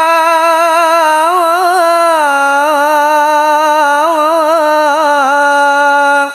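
A man singing Arabic sholawat alone, stretching one syllable into a long melismatic note that wavers in ornamental turns around a steady pitch. He stops just over six seconds in, leaving a short echo.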